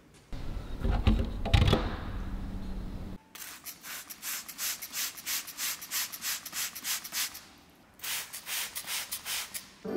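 Brisk rhythmic scrubbing strokes, about three a second, as of a brush or mitt worked over a foamed car surface, with a short pause before a second run. These follow about three seconds of a low rumbling noise.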